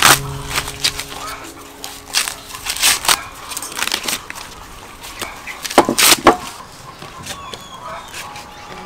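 Fresh corn husks being ripped and peeled off ears of corn by hand: crisp tearing and rustling strokes in short bursts, the loudest a pair of rips about six seconds in.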